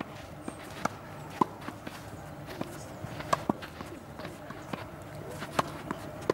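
Tennis ball struck by rackets in a volley rally at the net, a series of sharp pocks roughly once a second, with footsteps scuffing on the clay court.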